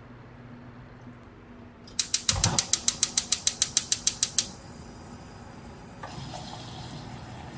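Gas stove burner being lit: the piezo igniter clicks rapidly, about seven clicks a second for some two and a half seconds, with a low thump as the gas catches. The burner then burns with a steady hiss, a little louder from about six seconds in.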